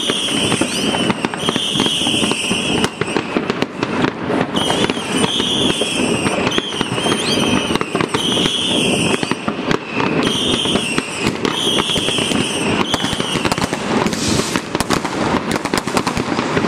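Dense New Year's fireworks across a city: a constant mix of rocket bursts and firecracker cracks and bangs, growing thicker near the end. A high warbling tone repeats about once a second above the bangs, stopping about three quarters of the way through.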